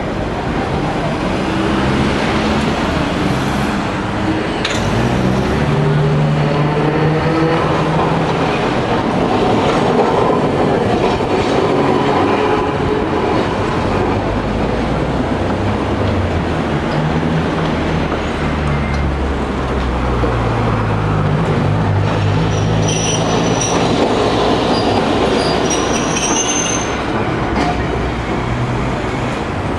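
Hiroshima Electric Railway streetcar running round a tight curve: its traction motors whine, rising in pitch during the first several seconds as it gets under way, with short high wheel squeals on the curve near the end.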